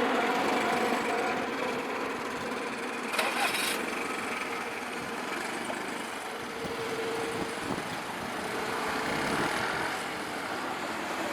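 Road vehicle engines running at a railway level crossing as a just-passed train fades away in the first second or two, with a short hiss about three seconds in.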